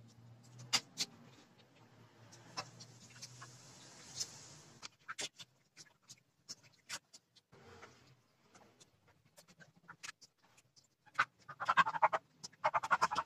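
A hand squishing and mixing raw pork belly slices in a wet marinade in a stainless steel bowl: wet squelching and slapping with scattered sharp clicks, growing denser near the end as the slices are handled into a container.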